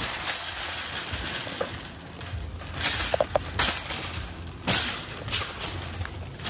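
Empty metal wire shopping cart rattling and clanking as it is pushed over pavement and bumped up onto a curb, with several sharp knocks about three to five seconds in.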